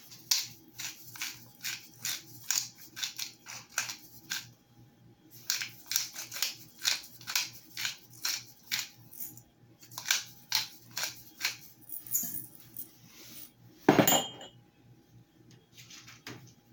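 Black pepper grinder twisted by hand, its grinding mechanism crunching out about three clicks a second in two long runs with a short break between. A single louder knock comes near the end.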